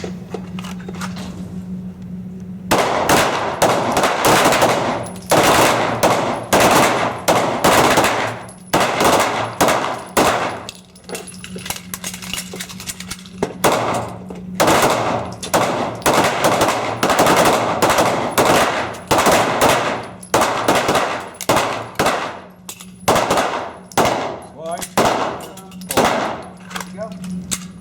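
Pistol gunfire from several shooters along the firing line: rapid, overlapping shots starting about three seconds in and going on throughout, with brief lulls. It is a timed string of 12 rounds with a reload in 30 seconds.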